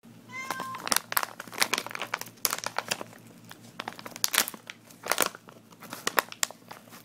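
Clear plastic bag crinkling and crackling as it is handled by hand in quick, irregular bursts. A brief pitched beep sounds right at the start.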